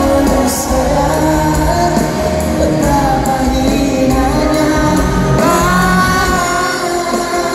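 A male singer performing a Malay pop ballad live, his sung lines carried over amplified band backing with heavy bass. It is loud concert sound filling a large arena, picked up from among the audience.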